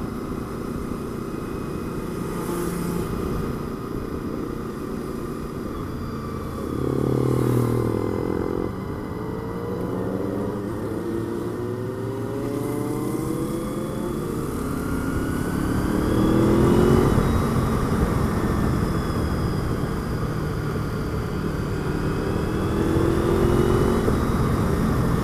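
Honda VFR800 V4 motorcycle engine under way, the engine note rising several times as the bike accelerates, with steady wind rush on a helmet-mounted microphone.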